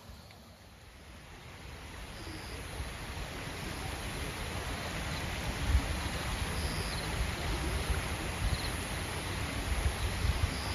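Running water of a stream, fading in over the first few seconds and then steady, with low gusts of wind on the microphone and a few short, faint high chirps.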